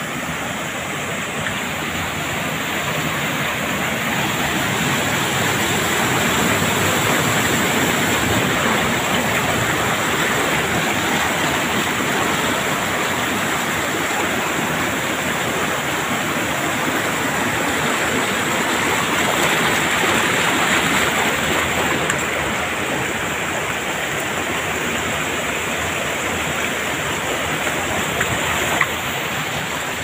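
Water rushing steadily over a small waterfall and rocky stream cascades into a pool, a continuous splashing hiss that swells and eases a little. There is one brief knock near the end.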